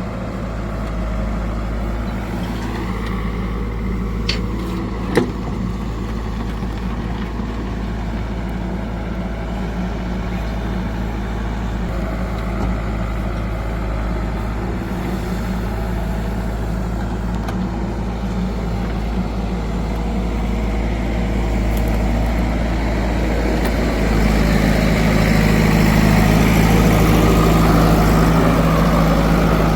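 Heavy diesel engine running steadily, with a sharp knock about five seconds in. The engine grows louder from about 24 seconds in, as if taking load or being revved.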